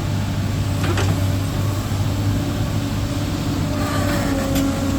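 Sany SY215C-9 excavator's diesel engine running steadily, with a faint tick about a second in and a thin whine coming in near the end as the machine is worked through its hydraulic tests.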